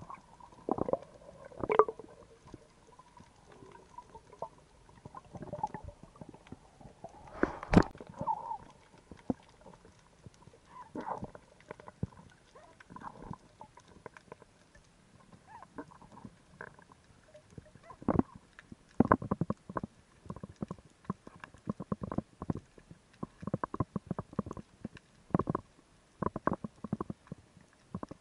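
Underwater sound on a freediving spearfishing dive over rocks: irregular sharp clicks and knocks with muffled gurgling, coming thick and fast over the last third.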